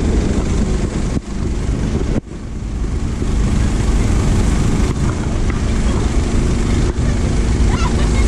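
Boat engine running steadily at speed, mixed with water rushing along the hull and wind on the microphone. The sound dips briefly twice, about one and two seconds in.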